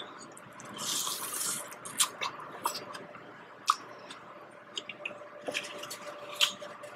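Someone eating sauce-coated corn on the cob close to the microphone: a short hiss of sucking about a second in, then wet chewing with scattered mouth clicks and smacks.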